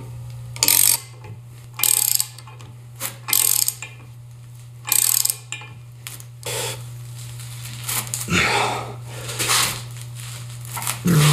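Hand ratchet clicking in short bursts, roughly once a second, as a large steel nut is worked onto a tight-fitting bolt through a steering knuckle. In the second half it gives way to quieter scraping and clanking as a large combination wrench tightens the nut. A steady low hum runs underneath.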